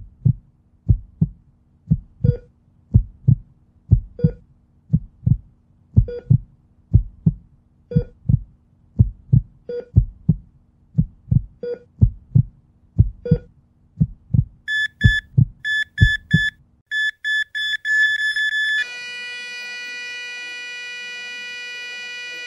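A heartbeat sound effect, a steady lub-dub thumping in pairs, joined about fifteen seconds in by rapid electronic beeps like a hospital heart monitor. The thumping stops, and from about nineteen seconds on the beeps give way to one long unbroken tone, the flatline of a heart monitor.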